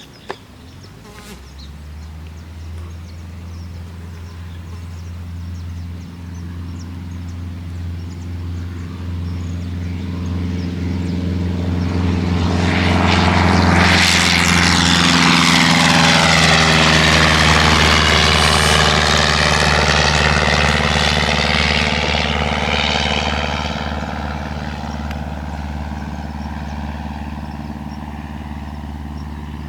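Cessna 152's four-cylinder engine and two-blade propeller running at power as the plane flies past. The steady drone builds for about a dozen seconds, is loudest in the middle with its pitch dropping as it goes by, then fades away.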